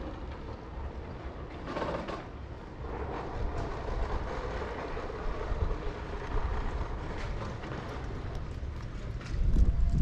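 A steady low mechanical rumble, with a faint hum in the middle and a short louder swell about two seconds in.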